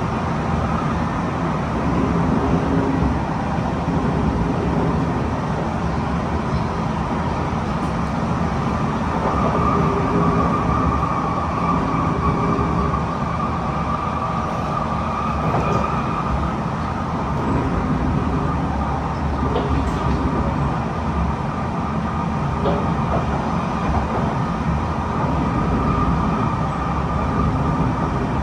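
Kawasaki C151 metro train heard from inside the passenger car while running between stations: a steady rumble of wheels on the rails and running noise. A thin higher whine grows stronger for a few seconds around the middle.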